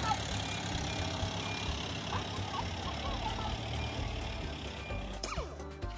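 A steady low mechanical hum, like a motor running, with a sudden sharp scraping sound about five seconds in.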